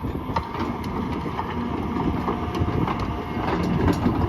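Doosan 255LC-V excavator's diesel engine running steadily, with a few light clicks over the rumble.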